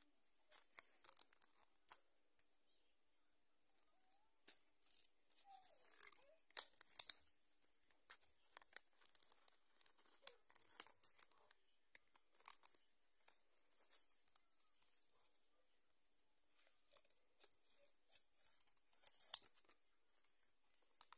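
Scissors snipping through plastic-and-card toy packaging, with the wrapper crinkling and tearing, in short irregular snips and rustles. Two sharper, louder snaps come about a third of the way in and near the end.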